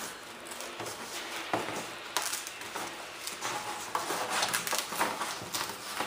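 A knife scoring a stiff white sheet, and the sheet being bent and cracked along the score: irregular scratching with small crackling clicks, getting busier toward the end.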